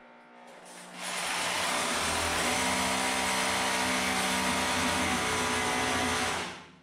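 Hammer drill boring an anchor hole into a concrete floor slab: the motor winds up over about a second, runs steadily under load, and stops near the end.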